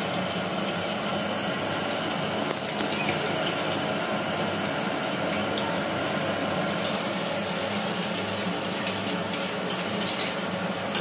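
Kitchen chimney (range hood) exhaust fan running steadily, an even loud whoosh with a faint hum, over cumin seeds sizzling lightly in hot ghee in a wok. A short knock near the end.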